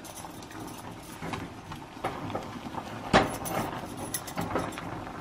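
Wooden spoon stirring and pressing thick barley ga'at dough in a small stainless-steel saucepan: irregular soft knocks and scrapes of the spoon against the pan, with one louder knock about three seconds in.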